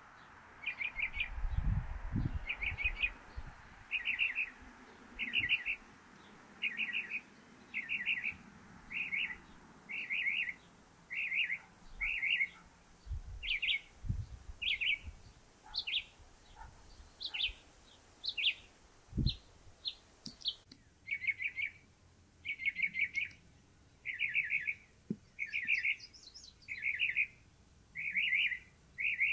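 Northern mockingbird singing from a perch. It repeats one short, buzzy phrase about once a second, then around two-thirds of the way through switches to a run of sharper, higher single notes before settling on a new repeated phrase.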